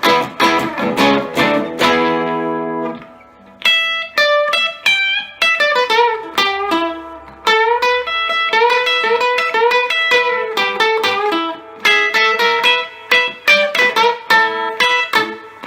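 Epiphone Casino hollow-body electric guitar played through a Vox AC15C1X valve amp on its Top Boost channel. It opens with quick strummed chords that ring out and fade, then, after about three and a half seconds, goes into picked single-note phrases.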